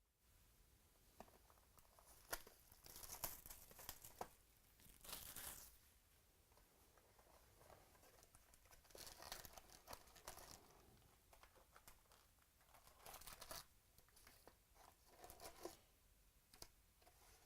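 Trading card pack wrappers being torn open and crinkled by hand, in several short bursts of tearing and rustling with a few light clicks.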